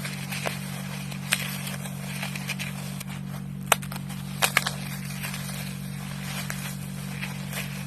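Dry floral foam being crushed, a continuous crumbly crunching broken by sharp snaps about a second in and again around four seconds in. A steady low hum runs underneath.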